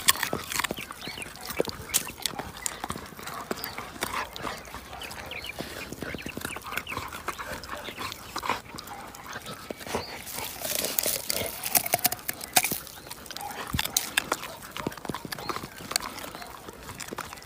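Yellow Labrador gnawing and crunching a raw sweet potato: a continuous, irregular run of crunches and wet chewing clicks.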